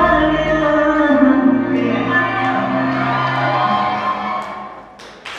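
A recorded dance song with singing plays for a dancer, thinning and fading out near the end, where a short burst of crowd noise comes in.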